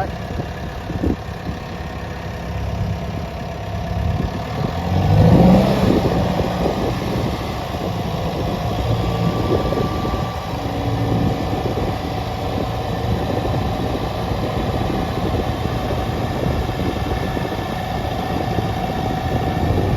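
Diesel engine of a Case/New Holland D95B crawler dozer running steadily, getting briefly louder about five seconds in as it is revved or put under load.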